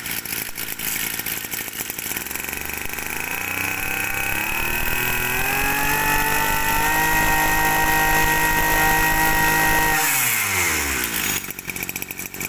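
Kawasaki two-stroke brush cutter engine idling, then throttled up over a few seconds to a high, steady rev, held, and released about ten seconds in so it winds quickly back down to idle.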